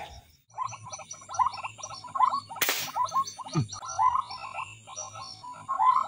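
A chorus of frogs calling in the rice paddy at night, many short croaking calls repeating and overlapping. A short, loud rush of noise cuts across the chorus a little over two and a half seconds in.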